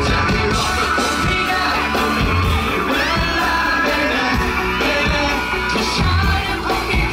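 Live band playing a pop song, male voices singing into microphones over electric guitar, keyboard, bass and drums through the PA, with audience shouts and whoops mixed in.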